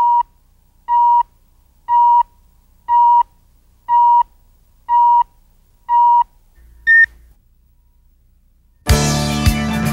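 Countdown leader beeps: a short single-pitch tone once a second, seven times, then a shorter higher-pitched beep about seven seconds in. After a pause of about a second and a half, music with drum hits starts near the end.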